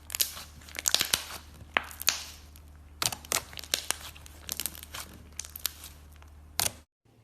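Slime being squeezed and poked by hand, giving an irregular run of crisp clicks, pops and crackles as air pockets burst. The sound cuts off abruptly near the end.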